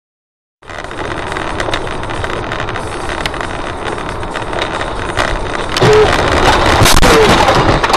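Car on the road recorded by a dashcam: steady road and wind noise starting abruptly after a short silence, growing much louder about six seconds in, with a few sharp knocks.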